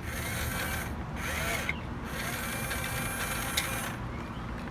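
Toy construction crane's winch mechanism running: a steady gear noise that stops briefly about a second in, then runs again for about three seconds.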